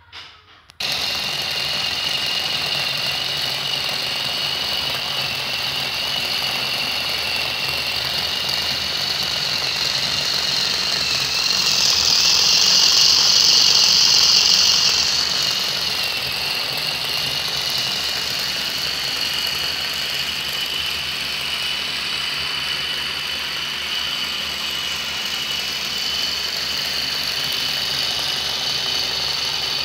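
Small electric DC motor with a fan propeller running, turning toy wheels through a homemade universal-joint drive shaft. A steady high whine starts abruptly about a second in and grows louder for a few seconds midway.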